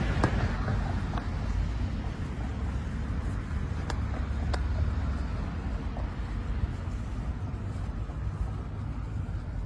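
Outdoor ambience: a steady low rumble, with a few faint clicks about four seconds in.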